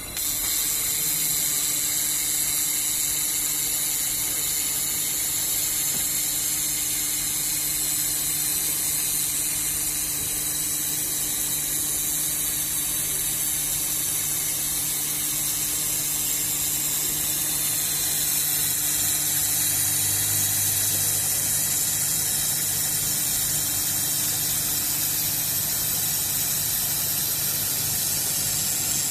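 Pillow plate laser galvanometer welding machine running: a steady high-pitched hiss with a low hum underneath, starting abruptly.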